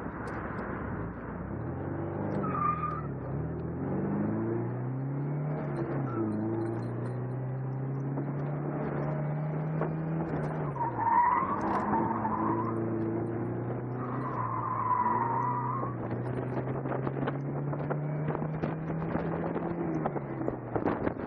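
MGB's four-cylinder engine pulling hard through an autocross run, its pitch rising and holding, then dropping back several times as the driver shifts or lifts. Tyres squeal briefly about two and a half seconds in, again around eleven to twelve seconds, and again around fifteen seconds. Near the end the revs fall away.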